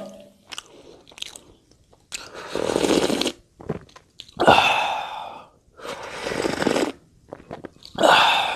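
Four loud, drawn-out slurping sips of Fanta soda from a small cup, each lasting about a second.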